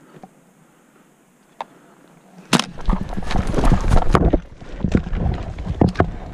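An airsoft player moving fast close to the microphone. After a quiet start, a sudden spell of rapid knocks, clicks and rustling begins about two and a half seconds in and carries on to the end.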